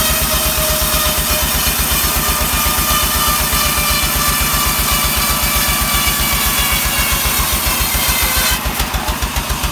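A band sawmill running and ripping a sengon log: a steady low pulsing from the machine's drive, with a high whine from the blade in the cut that sinks slightly as it works through the wood. About a second before the end the sound changes to a rapid pulsing.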